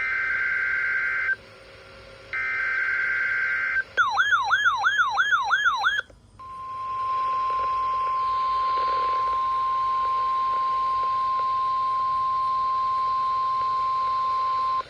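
NOAA Weather Radio alert tones for a Required Weekly Test. Two bursts of the SAME digital header's harsh data tones, about a second apart, are followed by about two seconds of a fast warbling alarm. Then the steady 1050 Hz warning alarm tone is held for about eight seconds.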